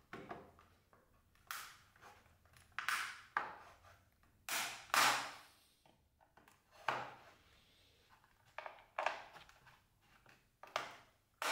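Thin metal blade scraping and prying in the seam of a plastic external hard-drive case: a string of about ten short, irregular scrapes and creaks, loudest around five seconds in.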